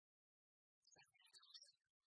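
Near silence: dead silent for nearly a second, then only faint, scattered soft sounds.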